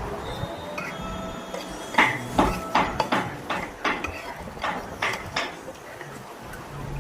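Dishes and utensils clinking and knocking: a run of sharp clinks with brief ringing, two to three a second, starting about two seconds in and stopping before the end.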